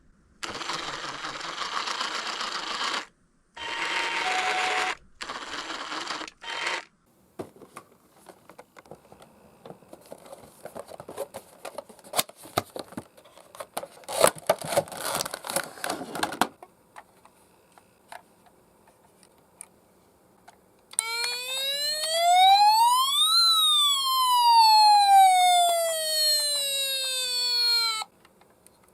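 Toy ambulance minicar's electronic siren sounding one wail: it rises in pitch for about two and a half seconds, then falls away over the next four and a half. Earlier there are hissy bursts of sound with a faint hi-lo two-tone, then a spell of small clicks and rattles.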